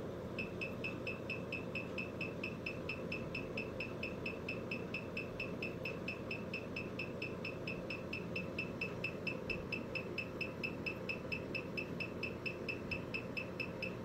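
Rapid electronic beeping from the AK90+ key programmer as it reads the BMW EWS3 module's MCU: short high pips, about five a second, held steady over a low hum.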